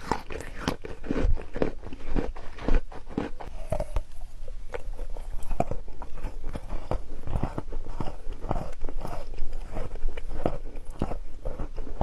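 Crisp candy sticks being bitten and chewed: an irregular, continuous run of sharp crunches, several a second.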